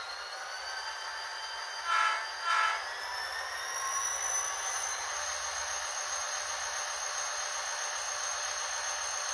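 Sound-equipped N scale Erie Lackawanna SD45 model locomotive playing its recorded diesel sounds through its tiny speaker: two short horn blasts about two seconds in, over a steady hiss, with a high whine that rises in pitch for a few seconds and then holds steady as the model pulls its train.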